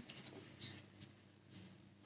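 Faint sniffing at a perfume-sprayed paper tissue held to the nose, a couple of short breaths in against a quiet room.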